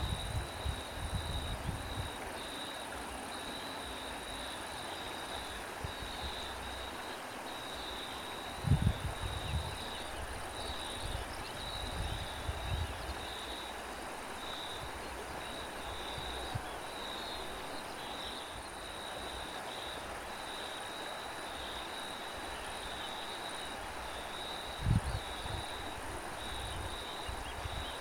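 Crickets chirping in a steady run of high pulses over a soft outdoor hiss, with wind gusting on the microphone as low rumbles, loudest about nine seconds in and again near the end.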